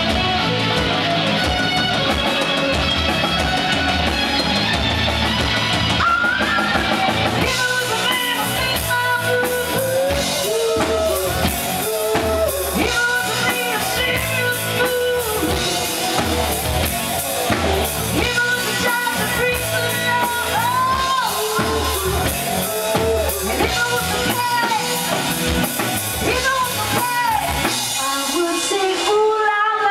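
Live rock band playing a song, with drums, electric guitar and keyboard. A woman sings the lead vocal from about six seconds in.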